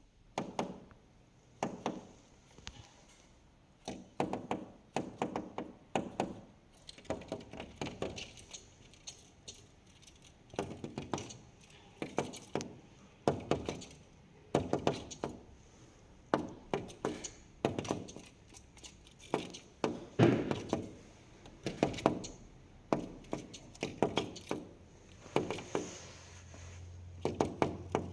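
A bird knocking on a window pane with its beak: irregular bursts of sharp taps on the glass, several in quick succession, repeating every second or two with short pauses between.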